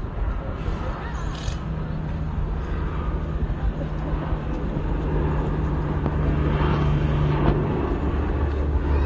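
Four turboprop engines of a Lockheed P-3 Orion patrol plane on low final approach, a steady propeller drone that grows louder as the aircraft comes nearer.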